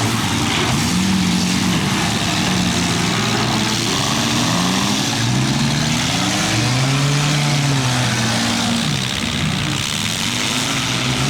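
Several compact-car engines revving and running at once, their pitch rising and falling over a steady noisy background.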